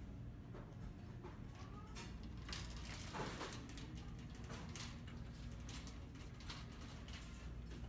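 Store ambience: a steady low hum with scattered light clicks and rustles, a little busier about three seconds in.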